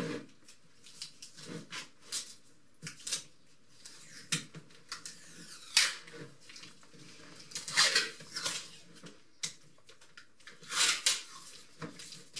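Black rubber rubbing strake being pulled, rubbed and slapped against a wooden workbench as it is handled, in irregular scrapes and knocks with a few louder ones.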